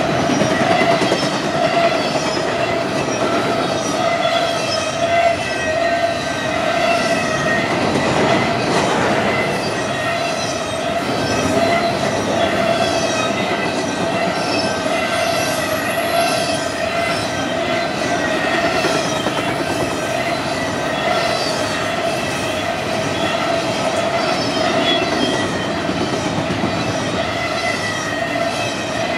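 Double-stack intermodal freight train's well cars rolling past at speed: a continuous loud rumble and rattle of wheels on rail, with a steady ringing tone over it.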